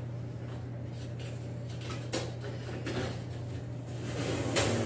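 Handling noises as a baked pie in its pie plate is slid off a wire oven rack with oven mitts: a few light clicks, then a louder scraping rustle near the end, over a steady low hum.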